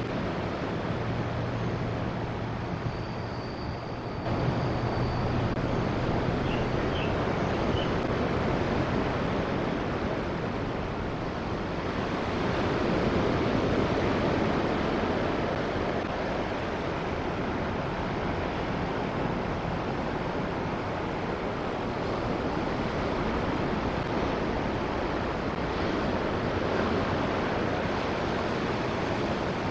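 Steady noise of sea surf and wind on the microphone, with a faint low steady hum in the first few seconds.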